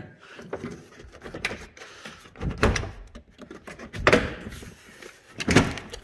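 Several separate knocks and clunks from a car door and its plastic door panel being handled, with the loudest two in the second half.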